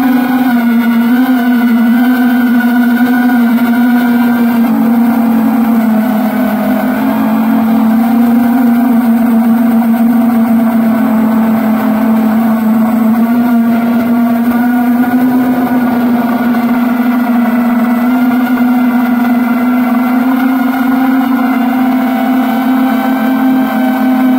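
Small multirotor drone's electric motors and propellers whining steadily, the pitch drifting up and down as the throttle changes.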